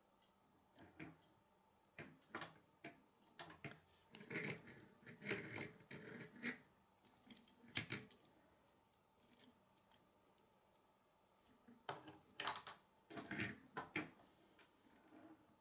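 Plastic K'nex rods and connectors being handled and snapped together: faint, irregular clicks and rattles, with a few louder snaps near the end.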